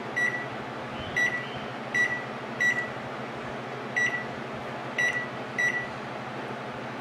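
Samsung microwave oven's control panel beeping as its keypad buttons are pressed one at a time: seven short beeps at uneven intervals over a low steady hum. The keys are being tested after the keypad ribbon cable was cleaned to cure an SE error code.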